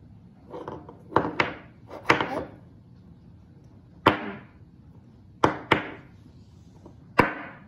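A small wooden block knocked down onto a wooden tabletop: about eight sharp knocks at uneven spacing, several in quick pairs.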